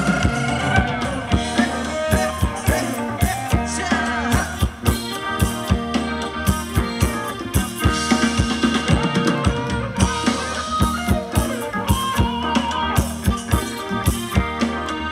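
Live Thai ramwong dance band playing: a drum kit keeps a steady beat of about two strong beats a second under keyboard and a melody line.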